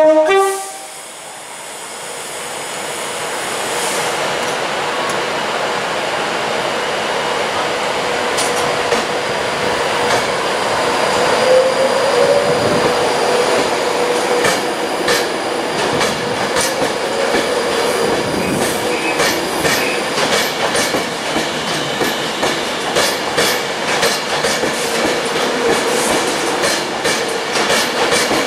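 Class 390 Pendolino electric train rolling past along the platform, its running noise building up, with a brief wheel squeal about twelve seconds in and its wheels clicking over rail joints through the second half. A brief loud tone sounds right at the start.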